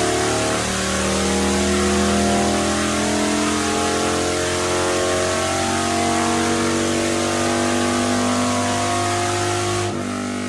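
Harley-Davidson Fat Bob's air-cooled Twin Cam V-twin, breathing through Vance & Hines Short Shots pipes, pulling a wide-open-throttle run on a dyno, its pitch rising steadily as the revs climb. Near the end the throttle closes and the engine drops off.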